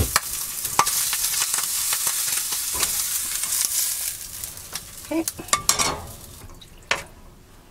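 Sliced sausage sizzling in a hot skillet on a gas burner. After about four and a half seconds the sizzle dies away as the pan comes off the heat, and a few knocks and scrapes of a spatula against the pans follow.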